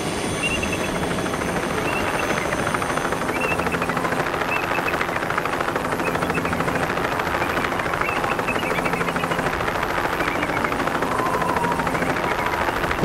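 Helicopter rotor blades chopping steadily as the helicopter hovers and climbs.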